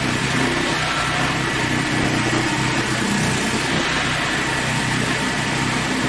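Hydraulic portable sawmill's engine running steadily at an even speed.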